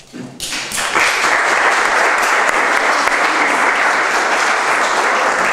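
Audience applauding, starting about half a second in and quickly building to steady, sustained clapping.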